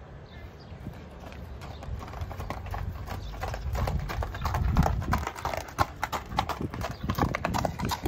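Hooves of a Thoroughbred horse walking on gravel: a run of crunching clip-clop strikes that grows clearer and more frequent about two seconds in, over a low rumble.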